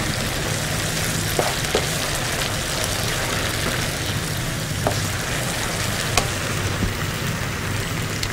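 Potato and semolina mixture sizzling steadily in a non-stick frying pan over a gas flame while it is stirred with a spatula, as the semolina cooks down toward a dough. A few light clicks of the spatula against the pan come through.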